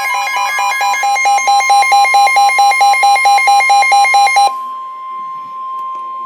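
NOAA Weather Radio 1050 Hz warning alarm tone, the steady alert that announces a new weather warning, with a rapid electronic beeping of several beeps a second over it. The beeping cuts off suddenly about four and a half seconds in, and the steady tone carries on alone.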